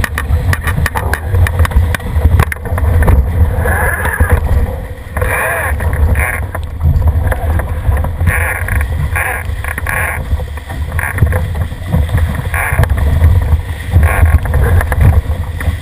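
A Cherub sailing dinghy planing fast downwind: water rushing and splashing past the hull, under a heavy low rumble of wind buffeting the microphone.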